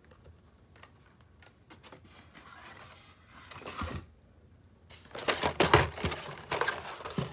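A hand rummaging in a cardboard box of carded die-cast cars: cardboard and plastic blister packs rustle and scrape. There are a few light clicks at first, and the loudest scraping comes in the last couple of seconds.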